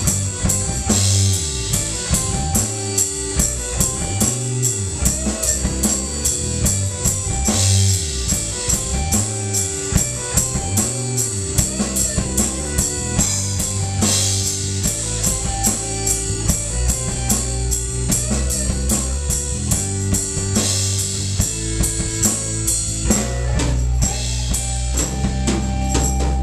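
Band playing live with a drum kit and electric guitars, an instrumental stretch without vocals: steady kick, snare and cymbal beat under sustained guitar and low notes.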